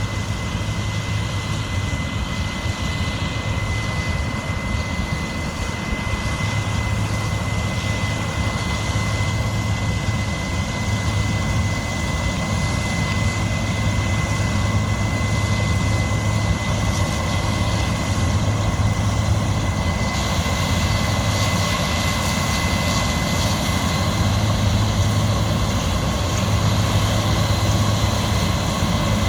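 Large farm harvest machinery running steadily under load, a deep engine hum with a constant high whine over it. The sound grows somewhat brighter about two-thirds of the way through.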